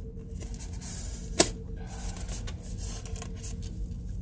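Styrofoam packing insert being worked loose inside a cardboard box by hand: faint scraping and rubbing, with one sharp click about a second and a half in.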